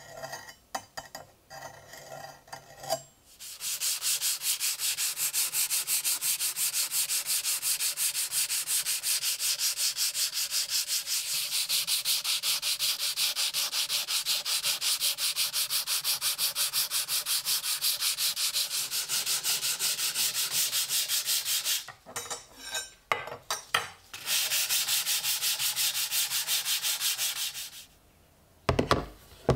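Sandpaper rubbed by hand along the rusty steel blade of an antique drawknife, in fast, even back-and-forth strokes. It stops for about two seconds a little past the middle, then starts again. Light knocks at the start, and a clunk near the end as the blade is set down in a plastic tray.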